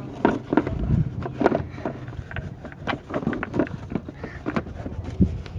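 Irregular clicks and knocks, several a second, from a Cummins ISX crankcase ventilation filter housing being handled and pushed into place by hand.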